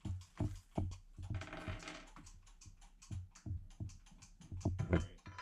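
Hands handling the fiber laser's parts and packaging on a wooden workbench: irregular light clicks and taps of small parts being picked up and set down.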